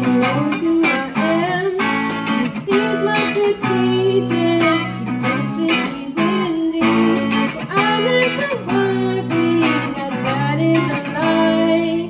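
Music led by strummed guitar, with a steady strumming rhythm under a melody line that bends and slides in pitch.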